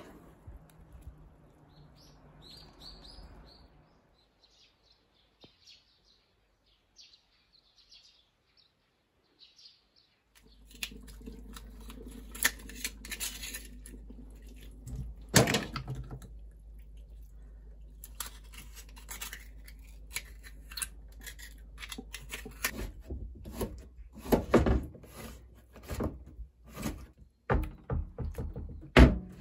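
Faint bird chirps, then kitchen handling of fresh abalone over a steady low hum: shells clattering and scraping in a stainless steel sink, then a knife chopping abalone meat on a wooden cutting board, with a run of loud knocks near the end.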